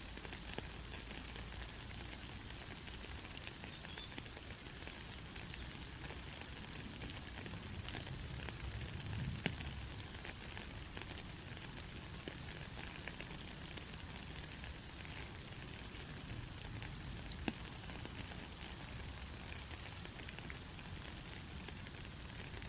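Steady white-noise hiss for lulling a baby to sleep, brightest in the high range over a faint low rumble, with scattered small clicks.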